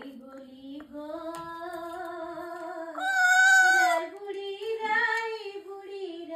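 Amazon parrot singing in a human-like, sing-song voice, with a loud, higher held note about three seconds in.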